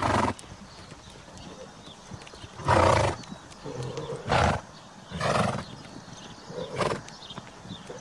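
Grazing horses close by making five short, loud, breathy bursts, with faint birdsong behind.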